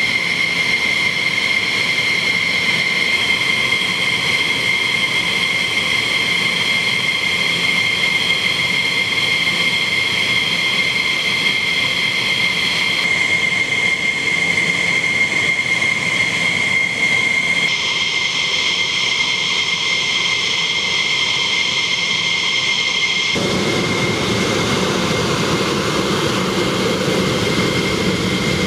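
Pratt & Whitney F100-PW-220 turbofan engines of an F-15 Eagle running on the ground with a steady high-pitched whine made of several tones. Near the end the sound changes to a fuller, rougher jet rush.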